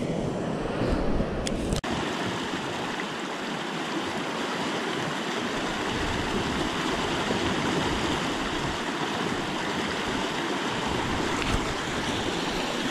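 Steady rushing of a fast, shallow river riffle running over stones.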